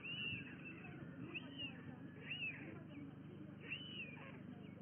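Bird calls: four short, high, arching calls about a second apart, over a low steady background rumble.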